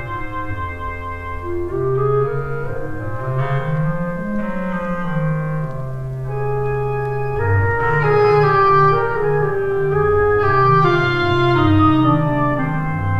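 Calm instrumental background music of sustained, slow-moving notes over a walking bass line, in the sound of organ and woodwind.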